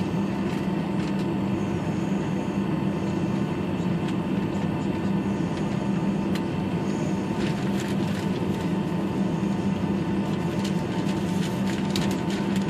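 Steady drone of an airliner heard from inside the passenger cabin: a low hum with a faint steady whine over it, and a few light clicks and taps in the second half.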